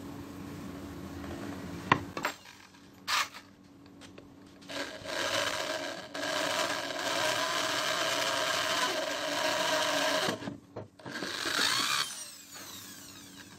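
Corded electric drill boring a hole into a charred wooden board: it runs steadily for about five seconds, then runs again briefly and winds down about twelve seconds in. Before the drilling there are a couple of sharp knocks.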